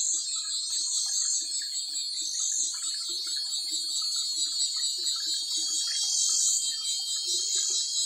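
A steady, high-pitched chorus of cicadas, swelling and fading every second or two. Beneath it is the faint, intermittent buzz of honeybees flying around the bait box.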